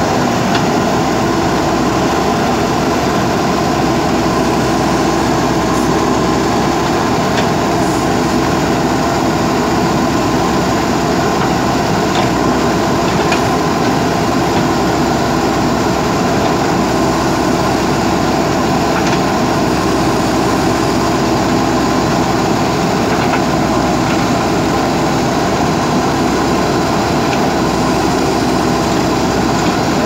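JCB backhoe loader's diesel engine running steadily while the backhoe arm digs into the earth bank.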